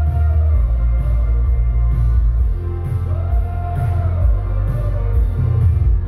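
Synthwave band playing live: heavy bass, synths and electric guitar under a sung vocal line held in long notes, over a steady beat.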